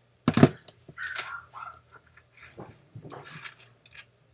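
Washer cabinet parts and brackets being handled and fitted: one loud knock about a third of a second in, then a run of quieter clicks and scrapes.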